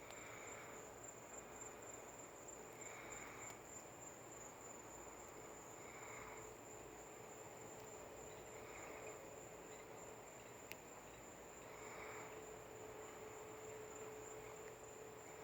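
Faint night ambience: a steady high-pitched insect trill with a low steady hum beneath it. A short chirping call repeats about every three seconds, which the uploader takes for birds chirping in the night.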